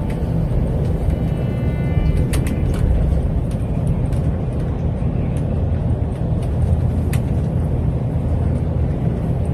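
Steady low rumble of road and engine noise from a car in motion, with a few faint clicks.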